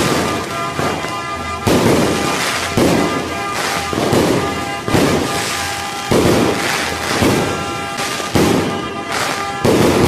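Fireworks bursting, a sudden bang about once a second that fades before the next, over background music with sustained tones.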